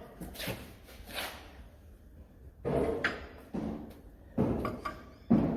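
Several clunks and scrapes of a steel hydraulic ram being handled and fitted into place on a Bobcat S150 skid steer loader.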